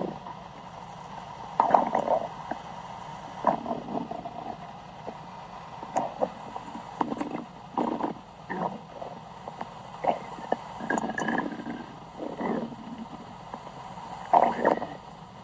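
Stomach growling: a series of about a dozen short, irregular gurgling rumbles spaced unevenly over several seconds.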